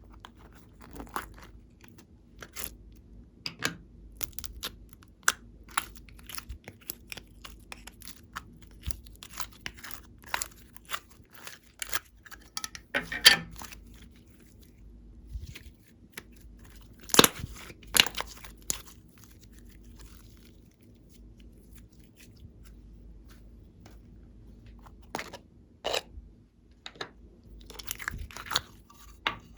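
Glossy slime being worked by hand: irregular sticky clicks, pops and small crackles, with a couple of louder snaps around the middle.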